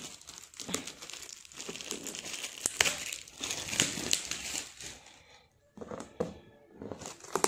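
Shiny foil gift-wrap being peeled and pulled off a cardboard box: irregular crinkling and rustling with a few sharp crackles, easing off briefly near the end.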